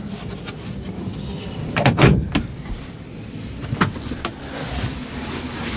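A few short knocks and clicks, the loudest cluster about two seconds in, from hands and fittings being handled inside the truck cab. A steady low hum runs underneath.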